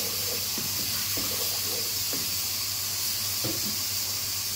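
Tomato-and-spice masala with a little added water sizzling steadily in a pot, with a few soft scrapes and taps of a wooden spatula stirring it.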